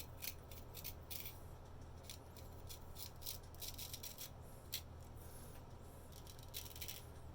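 An antique straight razor scraping over lathered stubble in many short, quick strokes at an irregular pace, with a faint steady low hum underneath.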